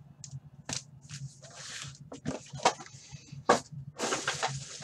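Foil-wrapped hockey card packs crinkling and rustling as they are handled and stacked, with a few sharp clicks along the way.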